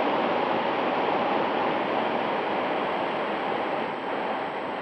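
Steady rush of wind over the plane's onboard RunCam 2 microphone in flight, slowly getting quieter, with no motor whine heard: the motors are throttled back and the plane is gliding.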